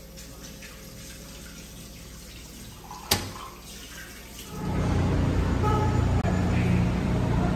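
A single sharp click about three seconds in, then a loud steady rush of street traffic noise with a low engine hum, setting in suddenly about four and a half seconds in.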